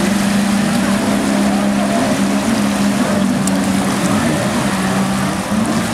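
Jet ski engines running at speed: a steady drone that wavers slightly in pitch, over rushing water.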